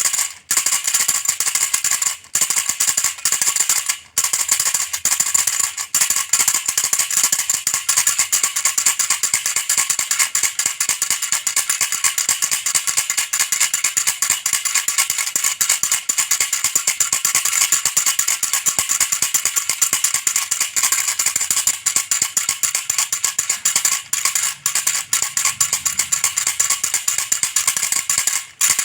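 Baby rattle toy shaken rapidly and continuously, a dense bright rattling with brief breaks about two and four seconds in.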